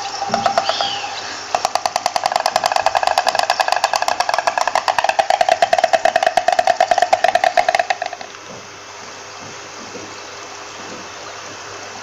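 Stork clattering its bill: a rapid, even drum-roll of wooden clacks that starts about a second and a half in and stops suddenly about eight seconds in.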